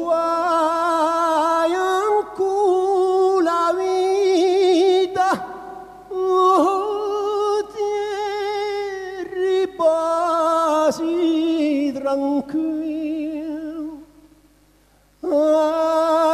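A solo voice singing a slow unaccompanied melody with strong vibrato, in long phrases with short breaths between them. Near the end the voice stops for about a second, then comes back in.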